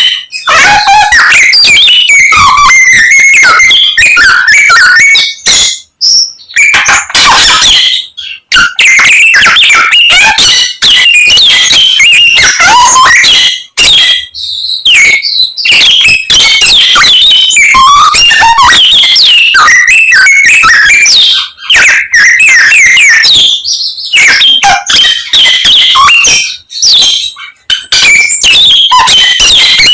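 Samyong songbird singing loudly and continuously: a fast, varied run of whistles, trills and chirps full of imitated calls of other birds, broken by a few short pauses.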